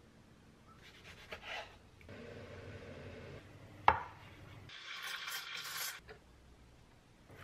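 Short kitchen sounds one after another: a few seconds of steady pouring, then a single sharp clack of a dish being set down, the loudest moment, then about a second of harsh grinding noise.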